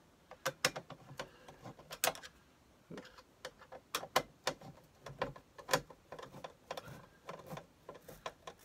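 Hand-held Phillips screwdriver driving screws into the sheet-metal mounting bracket of a Dometic heater kit: a run of irregular, sharp metallic clicks and ticks as the screwdriver turns and the screws seat.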